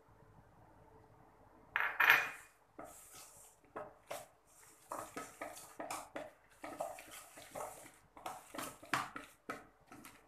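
Metal spoon scraping and clinking against a stainless steel bowl while stirring a thick gram-flour batter with chopped taro leaves and onion, in irregular strokes. A louder clatter comes about two seconds in.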